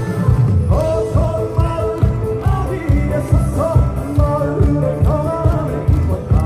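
Live Korean trot song: a male singer's voice through a handheld microphone over a band backing track with a steady heavy beat, heard through outdoor concert loudspeakers from within the crowd.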